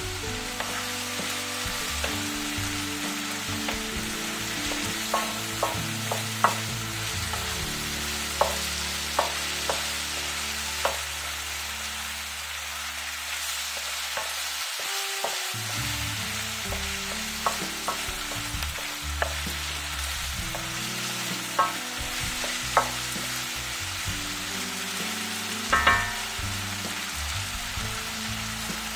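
Beef and vegetables sizzling in a granite-coated sac pan while a wooden spatula stirs them, with sharp taps of the spatula against the pan now and then and a short run of taps near the end.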